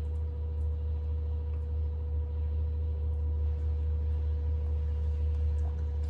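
Steady low hum with a faint, steady higher tone over it and no distinct events.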